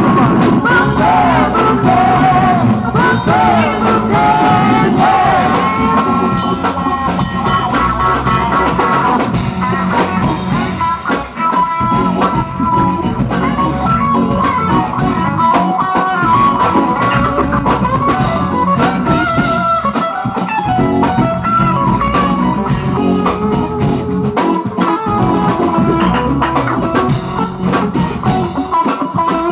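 Live rock band playing loud: electric guitars, bass, keyboards and drum kit.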